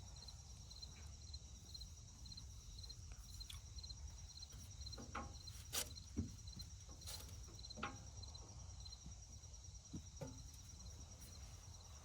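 Faint outdoor background of insects chirping in a steady, evenly repeating pattern, with a few scattered light knocks and clicks.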